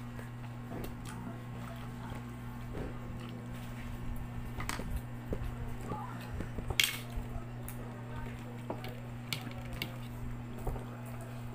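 Fingers picking crab meat from the shell and rice on a plate: small, wet clicks and crackles, with one sharper click about seven seconds in. A steady low hum runs underneath.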